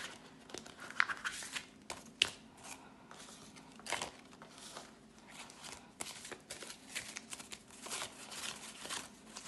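Jamaican banknotes rustling and crinkling as they are counted by hand, with sharp snaps of the notes about one and two seconds in and more flurries of rustling later.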